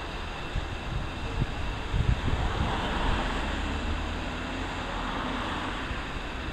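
CASA CN235 maritime patrol aircraft's twin turboprop engines droning as it flies overhead, the sound swelling in the middle. Wind buffets the microphone with low gusty thumps throughout.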